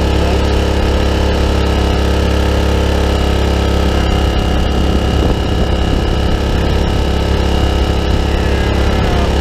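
Dirty Hand Tools 800-watt inverter generator's small 40 cc four-stroke engine running steadily.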